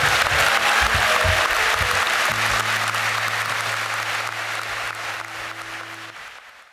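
Large audience applauding, the clapping slowly fading out. Under it runs background music that ends on a held low chord a little over two seconds in.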